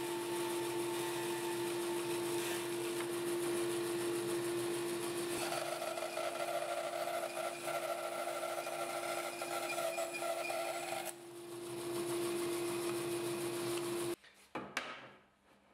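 Homemade band saw running with a steady hum, its blade cutting through a wooden block for about five seconds in the middle before running free again. The sound cuts off abruptly near the end, followed by a few light knocks.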